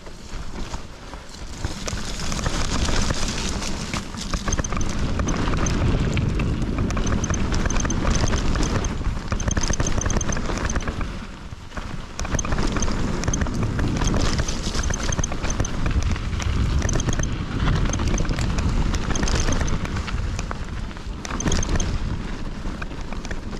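Hardtail mountain bike descending a rough trail: wind rushing over the microphone and the bike rattling over the ground, with short bursts of rear freehub ticking again and again as the rider coasts.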